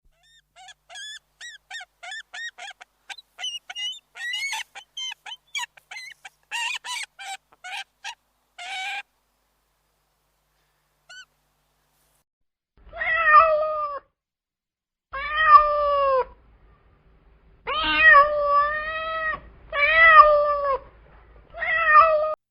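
A cat meowing five times, each meow about a second long and dropping in pitch at its end. It follows a run of many short, high-pitched squeaky calls in quick succession over the first half.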